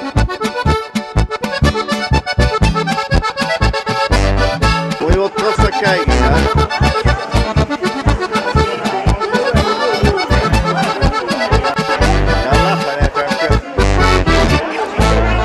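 Lively accordion-led traditional music with a steady, even bass beat, laid over the footage as a soundtrack.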